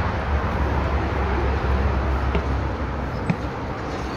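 Steady low outdoor rumble, like distant traffic or wind on a phone microphone, with a single sharp click a little over three seconds in, after which the rumble drops off.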